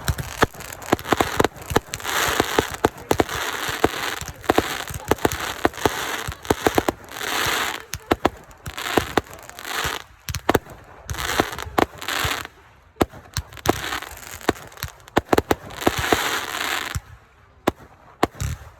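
Consumer fireworks going off in quick succession: many sharp bangs mixed with stretches of crackling. The crackling stops about two seconds before the end, leaving a few scattered bangs.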